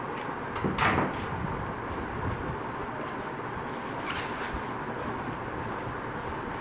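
Yellow packing tape ripped and cut from the roll with a sharp scraping sound a little under a second in, then the bubble-wrapped box rustling as it is handled about four seconds in.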